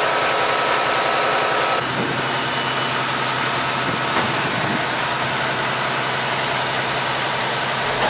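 Schwing S 20 truck-mounted concrete pump running while concrete is pumped through the boom and end hose. It is a steady engine drone, and the sound changes about two seconds in to a slightly quieter drone with a low hum.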